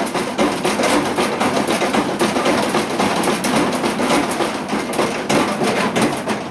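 Vending machine rattling with rapid, dense knocks and clatter.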